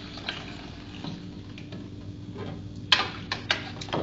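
Spoon and glass clinking and tapping as a drink of sweetened condensed milk and syrup is poured and stirred. The clinks are sparse at first and come in a quicker run of sharper strikes from about three seconds in.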